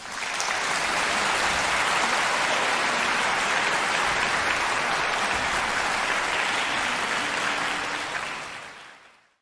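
Concert audience applauding: dense, even clapping that starts suddenly and fades out near the end.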